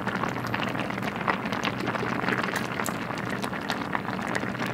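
Thick, starchy spicy rice-cake soup simmering in a stainless steel pot, a dense run of small bubbling pops over a steady low hum, with a few louder clicks as a ladle serves from the pot.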